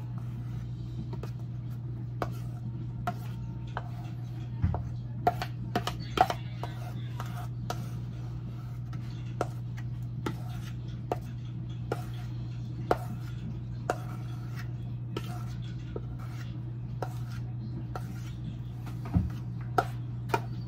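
Scattered clinks, taps and knocks of kitchen utensils and dishes being handled during food preparation, irregular and a few a second at most, over a steady low hum.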